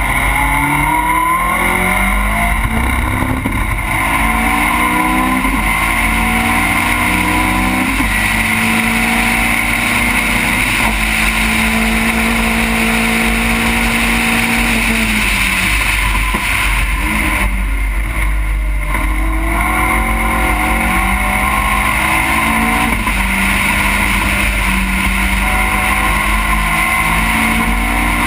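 Race car engine heard onboard, accelerating hard through the gears: each pull rises in pitch and drops back at the upshift. It holds one steady note for a few seconds about halfway through, falls away briefly, then climbs through the gears again.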